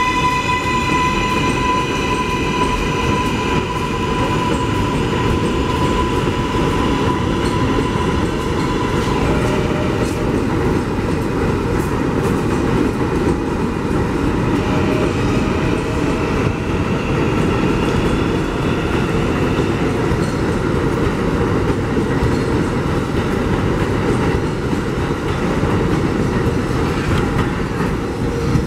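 New York City Subway 7 train pulling out of an elevated station, its cars rumbling and clattering over the elevated track. An electric motor whine holds a steady pitch for about the first nine seconds, then fades. A second whine rises in pitch around the middle as more of the train passes.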